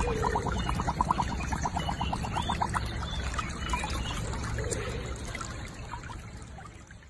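Water sloshing and trickling as a husky lies and moves in a shallow muddy pool, with a quick run of short ticks, about eight a second, through the first three seconds. The sound fades out near the end.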